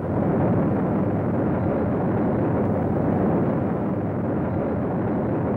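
Rocket engine launch noise: a loud, steady, dense rumble that starts abruptly and holds level.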